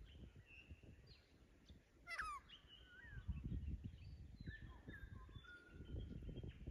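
Several wild birds calling in the dawn chorus, faint: a quick run of descending notes about two seconds in, then thin held whistles and short chirps. A low uneven rumble sits underneath.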